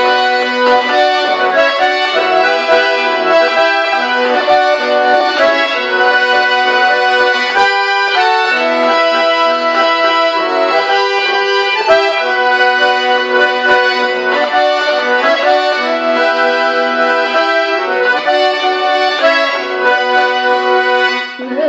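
Kazan piano accordion played solo: a melody over held chords with the bellows sounding steadily, with a brief break about eight seconds in.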